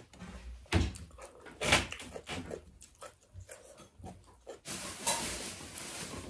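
Close-miked eating sounds from a meal of rice and fish eaten by hand: scattered wet clicks and smacks of fingers in food and of the mouth. About two-thirds of the way in, a steady hiss joins them.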